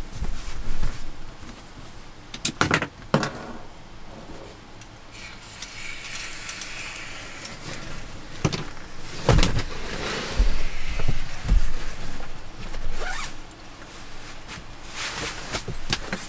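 A camping mat being unpacked from its fabric stuff sack: a zipper, the rustle of the sack's fabric, and several sharp knocks, with dull thumps near the middle as the bag and mat land on the wooden floor.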